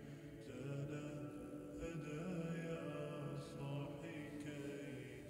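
Soft background music: a slow vocal chant with long held notes.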